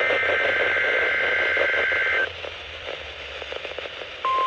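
Weather radio receiving an emergency alert through static: a burst of the SAME digital header, a two-pitch data squawk, for about two seconds, then hiss, then the steady single-pitch NOAA Weather Radio warning alarm tone begins near the end.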